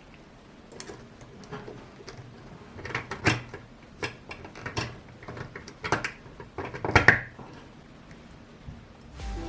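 Irregular clicks and knocks of hard plastic parts being handled and fitted together, the loudest about three seconds in and again about seven seconds in.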